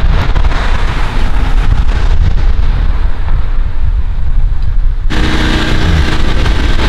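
Wind buffeting the microphone: a loud, gusting low rumble. About five seconds in it cuts to a different outdoor background with a faint low hum.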